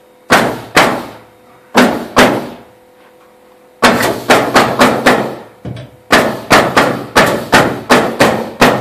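Pneumatic nail gun firing nails into a wooden ceiling arch and its framing, each shot a sharp crack. Four spaced shots, then from about four seconds in a quick run of about three shots a second.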